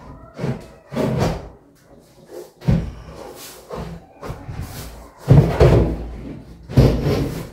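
A heavy MDF shelf with a metalon steel frame inside being pushed into a tight-fitting slot in a closet: several wooden knocks and thumps of the board against the cabinet sides, with rubbing between them. The loudest knock comes about two-thirds of the way through.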